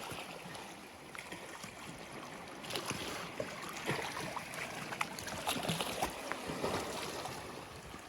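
Water lapping and trickling, with many small splashes and drips scattered through.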